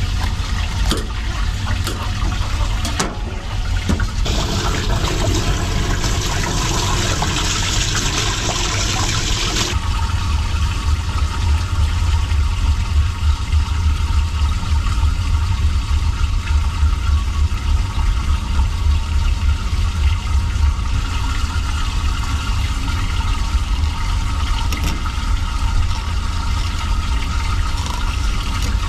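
Running water, loudest and brightest for about six seconds starting some four seconds in, then continuing more softly over a steady low rumble.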